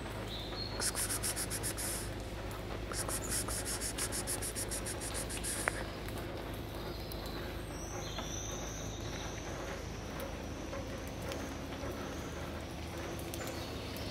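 An insect trilling: two bursts of rapid, evenly spaced high-pitched pulses, the first about a second long and the second about two and a half seconds, over a steady low hum. Faint thin high chirps follow from about halfway through.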